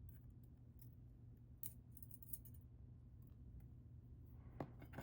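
A few faint, scattered small metal clicks of steel tweezers picking at the tiny pins and springs of a dismantled padlock, with a sharper click right at the end, over a low steady hum.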